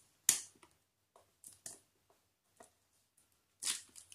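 Hands handling an Asus Zenfone Max Pro M2 cardboard retail box while working its lid off: scattered soft clicks and rustles, with a sharp tap about a third of a second in and another near the end.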